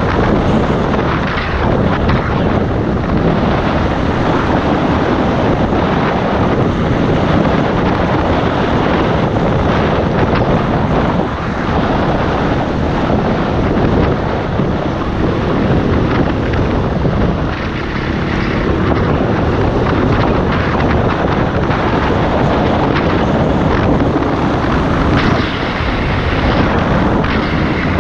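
Dirt bike engine running while riding, buried in heavy wind noise on the microphone.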